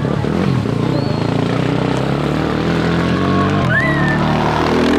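Rally motorcycle engine revving as the bike crosses a muddy water crossing and climbs the bank, its pitch stepping up and down with the throttle. Shouts from spectators come in near the end.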